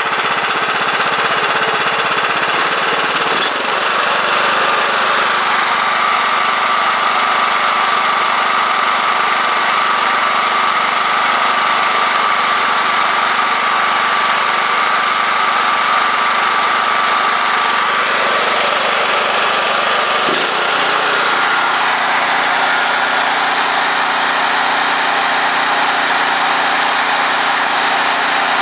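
Harbor Freight Predator 420cc (13 hp) single-cylinder four-stroke engine running steadily and smoothly. Its note shifts slightly about three seconds in and again about twenty seconds in.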